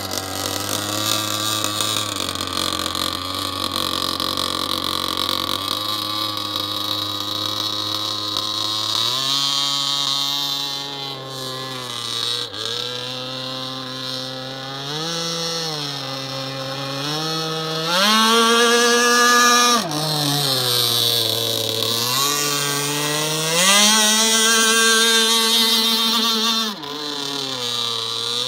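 Staufenbiel F1 Cat RC racing catamaran's small engine running at speed on the water. Its pitch rises and falls with the throttle, with two loud high-revving runs in the second half that each drop off sharply.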